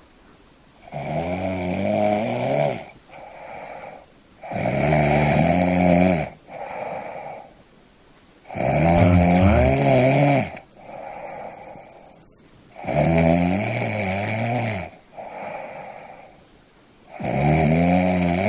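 Rhythmic snoring. Five loud, pitched, wavering snores come about every four seconds, each followed by a softer, shorter snore or breath.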